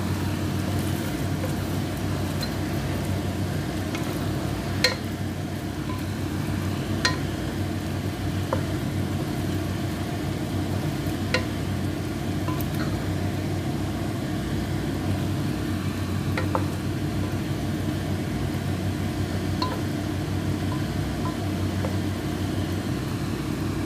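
A wooden spoon stirring chicken, potato and carrot chunks as they simmer in sauce in a pot, with a few sharp knocks of the spoon against the pot. A steady low hum runs underneath.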